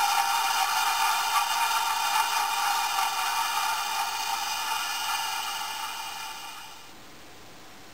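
Steady, sustained sound from an ESU LokSound decoder's small 23 mm speaker in a Hornby OO-gauge Class 60 model locomotive, fading out between about five and seven seconds in.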